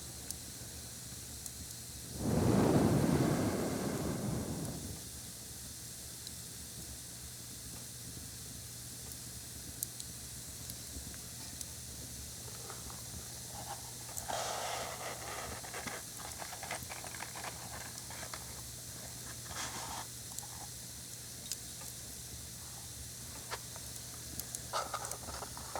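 A lit match blown out with one strong breath about two seconds in, the loudest sound. After it, quiet crackles and scratches of matches being struck and burning, with short bursts of crackling around the middle and again near the end.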